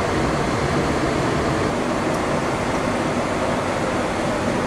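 Steady rushing cabin noise on the flight deck of a Boeing 737-700 in flight, airflow and air-conditioning hiss with a faint low hum underneath, holding an even level.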